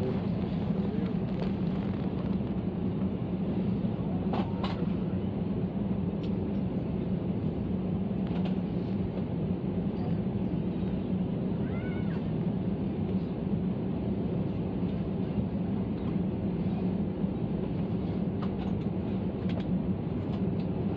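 Steady airliner cabin noise: an even low hum from the aircraft's air and engine systems, with a few faint short high-pitched calls or squeaks over it.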